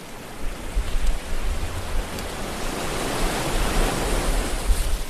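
Steady rushing hiss with an uneven low rumble underneath, growing louder about half a second in.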